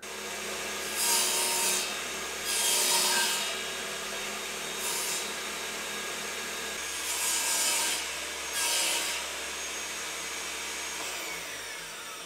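Table saw running steadily, with five louder bursts of sawing as the blade cuts through 18 mm plywood in repeated passes.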